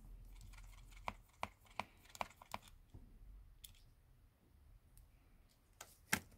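Faint, scattered light clicks and taps of small tools and parts as a smartphone is taken apart by hand, a run of them about a second in and a sharper click near the end.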